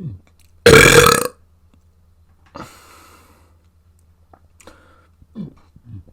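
A person burping: one loud belch lasting about half a second, about a second in, followed by a quieter breathy exhale and a few small mouth sounds.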